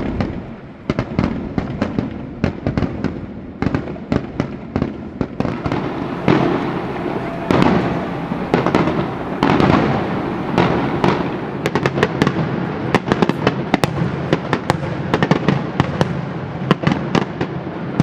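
Fireworks going off in rapid succession at a large aerial display: dense sharp cracks and pops over a continuous rumble of bursts, thickest about a third of the way in and again through the second half.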